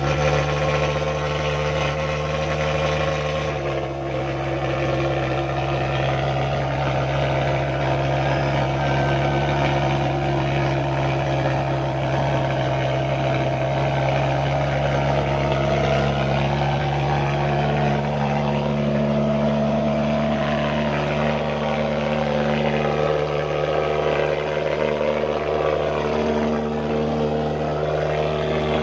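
Portable pulse-jet thermal fogging machine running steadily while spraying insecticide fog, a continuous engine drone whose tone shifts slightly about four seconds in.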